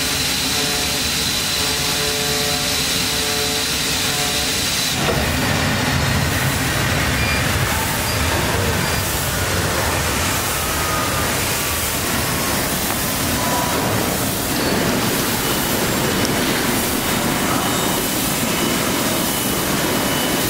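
CNC flatbed cutter running through a topsheet cut, a steady machine hiss with a thin whine. About five seconds in the whine drops away and the sound turns rougher, with more low rumble.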